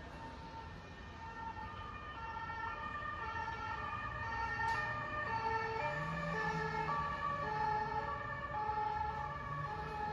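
A two-tone emergency vehicle siren on the street, its high and low notes alternating about every half second over low traffic rumble. It grows louder over the first few seconds as it approaches, then holds steady.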